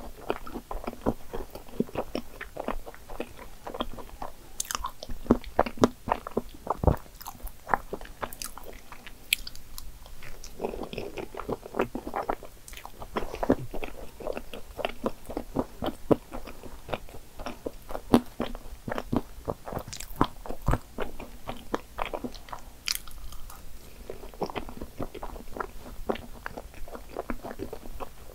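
Close-up chewing of cream puffs topped with whipped cream and chocolate chips: a dense run of wet mouth smacks and clicks with small crunches.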